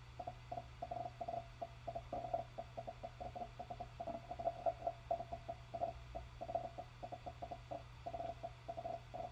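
8TB NAS hard drive under read/write activity: the read/write heads seek with a rapid, irregular chatter of clicks over the steady hum of the spinning platters.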